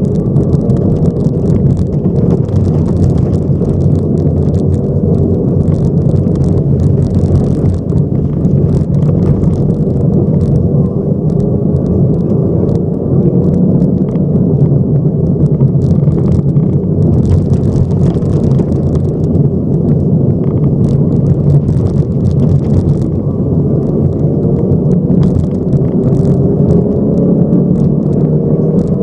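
Inside the cabin of a Subaru rally car: its flat-four engine running under load, with steady road rumble and an intermittent crackle of gravel under the tyres as the car drives a wet gravel stage. The engine pitch rises and falls with the throttle.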